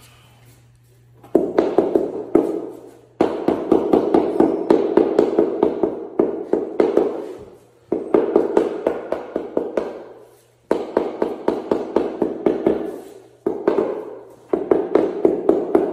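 Rapid tapping on newly laid floor tiles, setting them into the mortar: runs of about five dull taps a second, in four or five bursts of a couple of seconds each with short pauses between.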